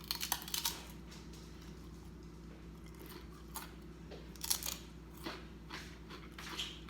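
Biting into and chewing a crunchy tortilla chip topped with a salted worm: a quick run of crunches in the first second, then scattered single crunches.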